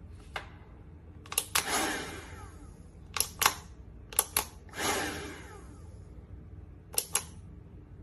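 Plastic power button on a GM Bear 2034 cordless handheld vacuum clicking, mostly in quick pairs, about five times. Twice a short whoosh follows that falls in pitch.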